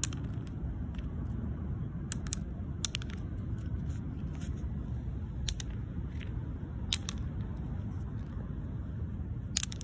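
Wind rumbling on the microphone, with about a dozen scattered small sharp clicks and cracks, some in quick pairs.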